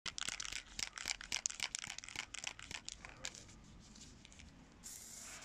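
Aerosol spray-paint can being shaken, its mixing ball rattling in quick irregular clicks for about three seconds. Near the end comes a short hiss of spray.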